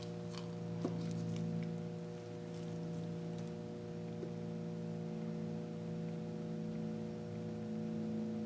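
Steady low hum with several fixed tones, with a few faint clicks and taps now and then.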